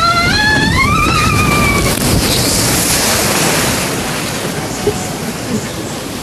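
A rider's long, rising scream as the log-flume boat plunges down the drop, then a rush of splashing water as it hits the bottom, fading away after a couple of seconds.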